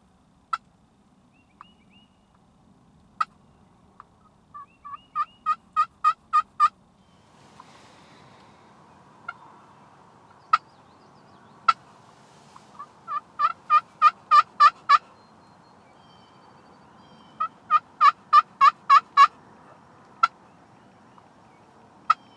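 Hen turkey yelps from a turkey call: three runs of about eight to ten evenly spaced yelps, with single clucks between, used to draw a tom back toward the blind.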